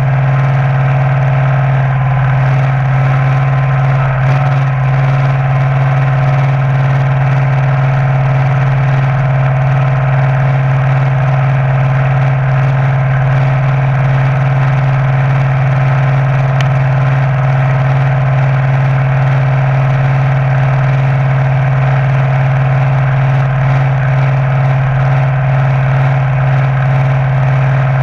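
A front-loader tractor's engine running at a steady, unchanging speed as the tractor drives along, heard close up from the hood.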